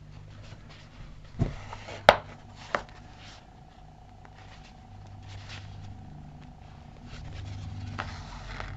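Quiet handling noise from hand-sewing a stuffed fabric pin cushion, with three sharp clicks between about one and three seconds in, the second the loudest, over a low steady hum.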